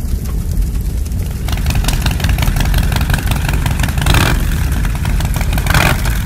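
Car engine running with a deep, low rumble, growing louder about one and a half seconds in, with two brief louder swells near the end.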